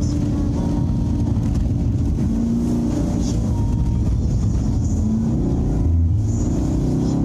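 Chevrolet Camaro SS V8 engine running hard on track, heard from inside the car, over a constant hiss of wet tyres and wind noise.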